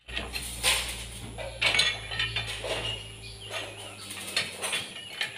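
Metal tools and parts clinking and knocking against steel, several sharp clinks at irregular intervals over a low hum that fades out about halfway through.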